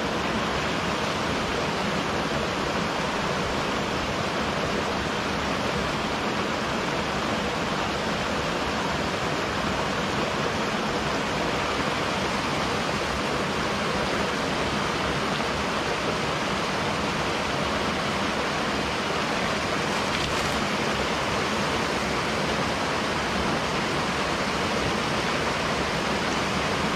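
Small waterfall on a mountain headwater stream splashing into a pool: a steady, even rush of water.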